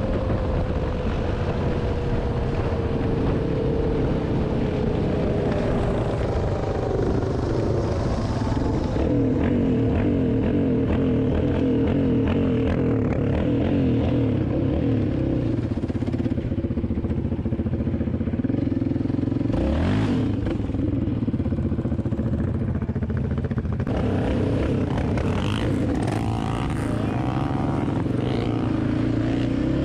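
An off-road motor vehicle's engine running while riding. Its pitch drops over the first several seconds, then holds fairly steady. There is a sharp clattering knock about twenty seconds in.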